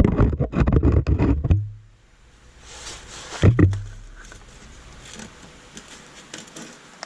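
Close-up handling noise while fitting parts under a car: a rapid run of clicks and knocks for about a second and a half, a single louder knock about three and a half seconds in, then faint scattered ticks and rustling.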